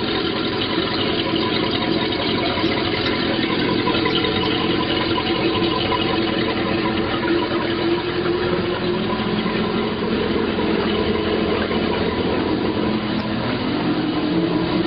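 Mercury MCM 5.0-litre MPI V8 sterndrive engine idling steadily while run on the trailer on garden-hose water, with water splashing off the Bravo Three outdrive.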